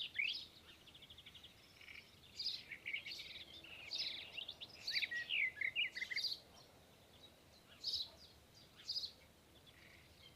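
A bird calling in a run of short chirps and sliding whistled notes, with a fast rattle of ticks about a second in, then after a pause a few separate bursts of chirps.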